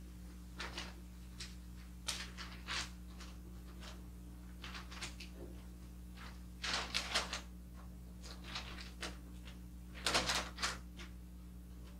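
Brown kraft wrapping paper rustling and crinkling in short bursts as it is lifted and folded over a box, loudest about seven seconds in and again about ten seconds in.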